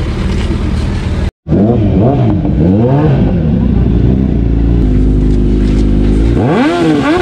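Sport-bike engines, a Suzuki Hayabusa's inline-four among them: a steady idle, a split-second break in the sound, then quick throttle blips that rise and fall several times. They settle to a steady idle, and there is one more rev up and down near the end.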